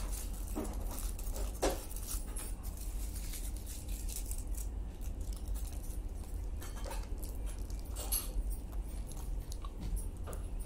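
Aluminium foil crinkling and crackling in quick bursts as it is peeled back from a wrapped roll, thinning out after about four seconds. Then a few softer sounds of biting into the roll and chewing.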